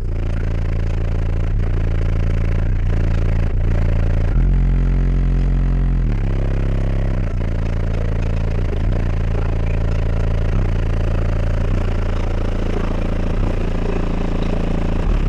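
Car audio system with four Skar ZVX 18-inch subwoofers in a 4th-order wall, playing bass-heavy music very loud. Deep sustained bass notes change every second or two.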